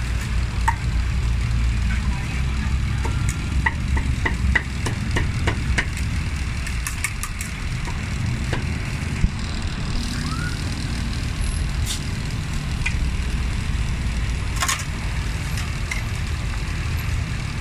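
Street-stall background: a steady low rumble like traffic or an idling engine, with a run of quick light clicks and clinks between about three and eight seconds in and a few more later.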